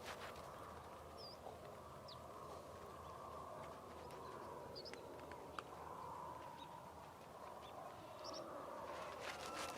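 Prairie outdoor ambience: a steady, soft rushing background with a few short, high bird chirps scattered through it.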